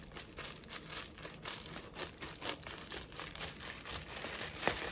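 Plastic packaging crinkling and rustling as a package is opened by hand, with irregular crackles throughout and a sharper crack near the end.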